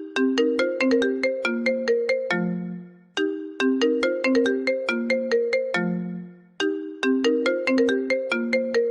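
iPhone ringtone playing: a quick melodic run of bright, plucked-sounding notes, repeated three times, each phrase ending on a low held note that fades away.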